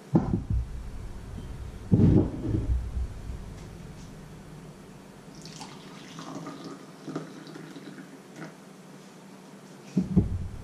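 Liquid poured from a vacuum flask into a ceramic mug, a short trickle in the middle. Heavy knocks come at the start, about two seconds in and near the end as the flask and its lid are handled and set down on the wooden counter.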